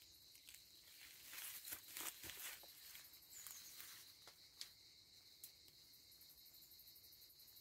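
Faint footsteps on dry leaves and undergrowth, with a couple of small clicks in the middle. Then a faint, high, rapidly pulsing insect chirp sets in and keeps on through the rest.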